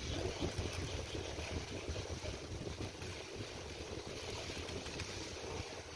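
Steady low rumble with a faint hiss, unchanging background noise with no distinct strokes or knocks.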